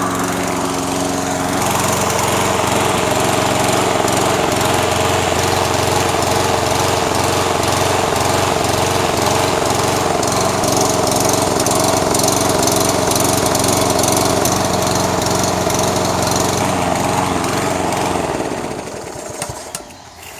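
Toro SR4 Super Recycler's 159cc single-cylinder mower engine running steadily after a pull start, then winding down and stopping near the end. This is the engine with the surging problem, here running uncovered so the governor linkage can be watched.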